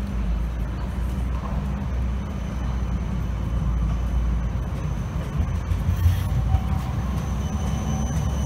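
Siemens Combino low-floor tram running past at close range: a steady low rumble of wheels on the street rails, with two sharp knocks about six seconds in and a faint high whine near the end.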